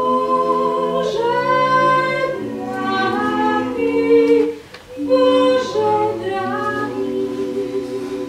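Small mixed vocal ensemble of four women and a man singing a cappella in close harmony, holding chords in several parts. A short breath break comes about halfway through, and the last chord is held long and slowly fades.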